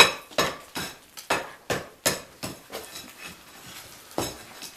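Hammer blows with a metallic ring, chipping into a brick wall, about three strikes a second. The blows slow and thin out after about two and a half seconds, and one more strike comes near the end.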